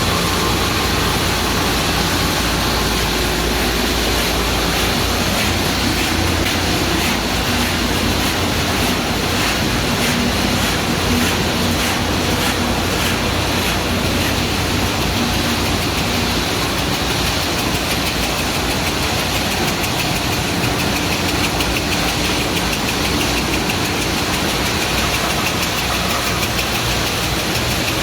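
Pet food extruder machinery running steadily, a loud even mechanical noise with a low hum.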